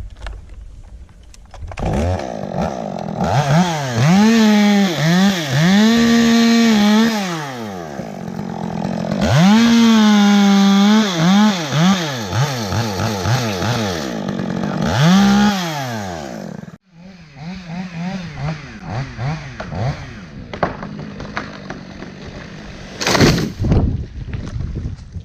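Chainsaw revving and cutting into cypress wood, its engine speed rising and falling over and over. About seventeen seconds in it drops suddenly to a lower, uneven run with short blips of throttle. A brief loud burst of noise comes near the end.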